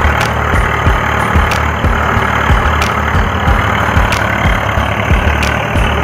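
Diesel tractor engine sound idling steadily, a low, even chugging beat of about three pulses a second.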